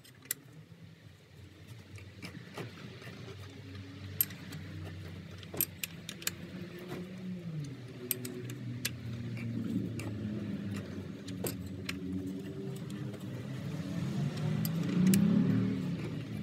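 VW 1.9 SDI diesel engine being turned over by hand with a tool on the crankshaft to check the new timing belt's timing: scattered sharp metallic clicks and clinks, over a low hum that wavers in pitch and grows louder toward the end.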